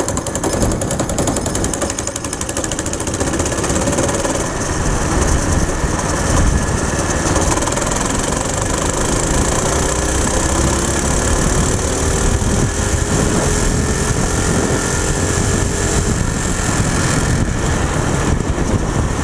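Small four-stroke go-kart engine run flat out on a top-speed run, under heavy wind noise on the microphone. A faint whine creeps up in pitch through the middle and then levels off as the kart stops gaining speed.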